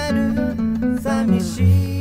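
Background music: an acoustic guitar song with strummed, held chords.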